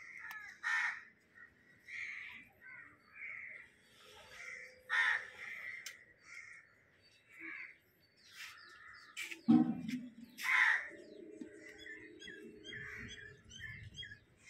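Crows cawing over and over in short calls, with one louder, sharp sound about two-thirds of the way through.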